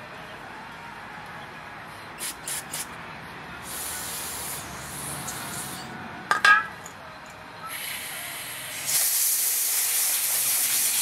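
Pressurized spray hissing through a carburetor emulsion tube to clear fine grit from its tiny holes: a short burst about four seconds in, then a longer, louder one from about eight seconds in. A few light clicks come before it, and a sharp clack comes around six and a half seconds.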